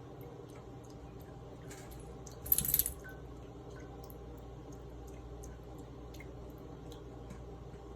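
Water from a tap falling into a sink, with scattered small drips, and one short, sharp splash about two and a half seconds in.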